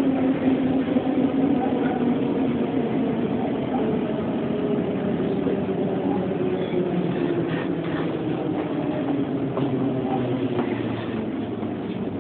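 Tobu 5070 series electric train's nose-suspended (tsurikake) traction motors and gears droning under the car, with wheel-on-rail rumble and a few faint clicks, heard from inside the passenger car. The pitch of the motor drone falls slowly and the sound eases as the train slows.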